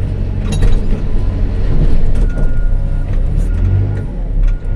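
Caterpillar 416F2 backhoe loader's diesel engine running with a steady low rumble. There are a few short knocks, and from about halfway through an intermittent high beep sounds.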